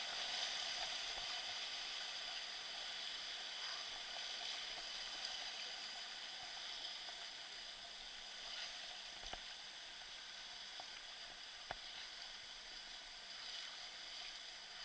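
Steady rushing hiss of moving water, with a few faint knocks in the second half.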